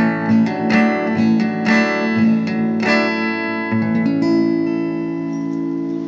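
Acoustic guitar, picked note by note, playing the end of a song: plucked notes for about three seconds, then a final chord about four seconds in that is left ringing and slowly fading.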